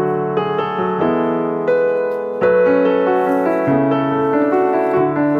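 Background piano music, a melody of sustained notes played one after another.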